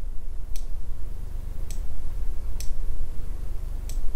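Computer mouse clicking four times, unevenly spaced about a second apart, over a steady low hum.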